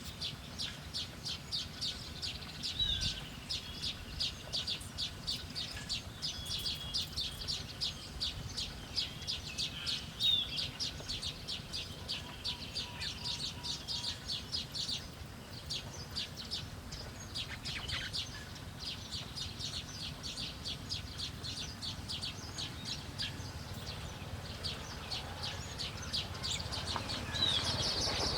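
Small birds chirping in rapid runs of high notes, several a second, with a few short whistled notes among them; the chirping thins out about halfway through and picks up again near the end.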